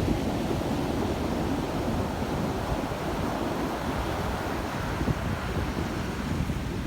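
Ocean surf breaking and washing in a steady, rumbling roar, with wind buffeting the microphone.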